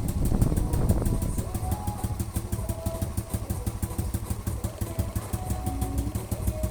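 Motorcycle engine idling with a steady, rapid beat.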